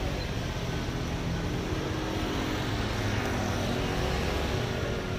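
Motor vehicle engine and road traffic noise, a steady low rumble that swells slightly partway through.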